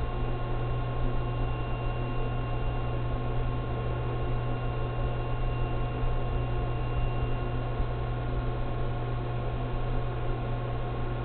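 Steady low electrical hum of running equipment, with a few faint, steady whining tones above it and no change throughout.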